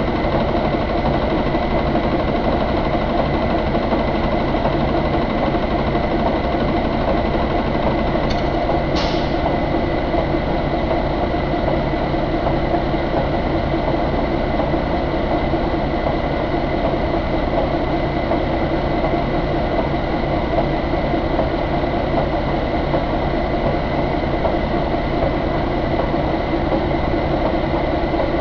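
Cummins ISX15 inline-six diesel truck engine idling steadily. Two brief sharp sounds come about eight and nine seconds in.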